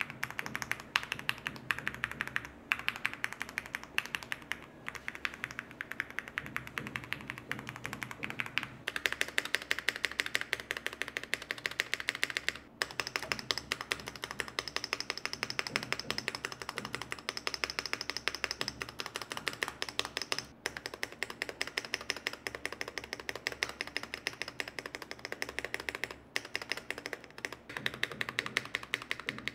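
Fast, continuous typing on a mechanical keyboard fitted with thick PBT keycaps, clacking keystrokes with a few brief pauses. The clicks turn brighter about nine seconds in.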